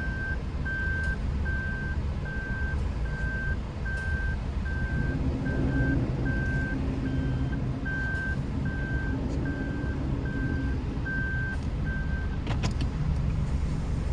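Vehicle reversing warning beeps, a steady single-tone beep about twice a second, over a car engine running low. The beeping stops near the end, followed by a few quick clicks.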